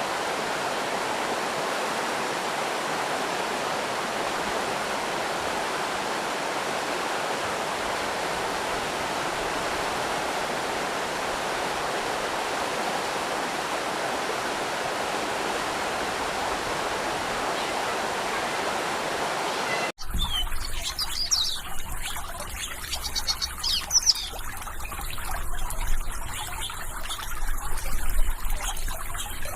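Flowing water from a stream or small waterfall, a steady even rush. About two-thirds of the way through it cuts off abruptly, and birds start chirping in quick high twitters over a low rumble.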